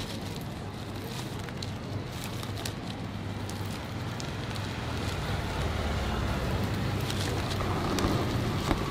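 Steady street traffic rumble that grows louder toward the end, with faint scattered crackles as the salt crust and skin of a grilled fish are peeled back by hand and knife.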